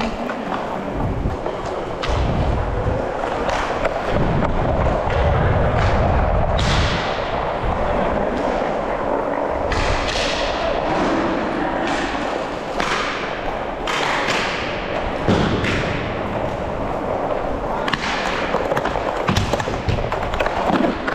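Inline skate wheels rolling and rumbling over plastic sport-court rink tiles, with thuds and repeated sharp clacks from hockey sticks and the puck.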